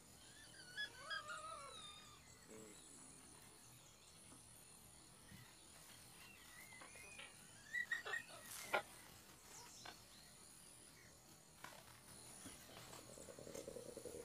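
Faint high, wavering whines from spotted hyenas, a cluster in the first two seconds and a few more, with some sharp clicks, around eight seconds in.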